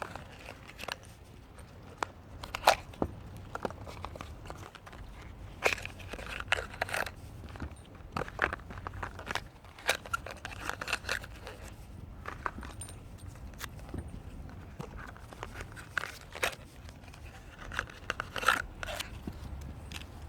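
Steady low rumble of a car in motion, with irregular clicks and rattles over it.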